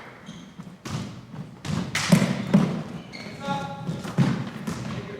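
Basketball bouncing on a hard court floor during play: a run of irregular thuds.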